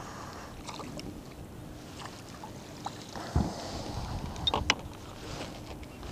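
Water lapping at the plastic hull of a Hobie Pro Angler 12 fishing kayak, with knocks and clicks as a landing net and gear are handled against the hull. A dull thump comes about three seconds in, and a quick cluster of sharp clicks follows a second later.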